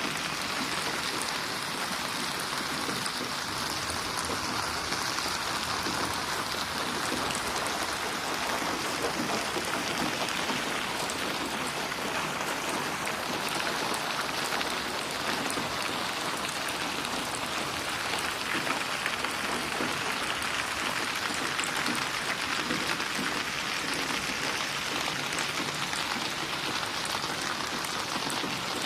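Steady rain falling and pattering on surfaces, with fine scattered drop splashes and no thunder.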